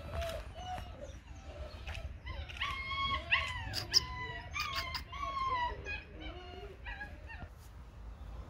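Belgian Malinois puppy whimpering in a quick run of short, high whines, densest and highest in the middle and trailing off near the end.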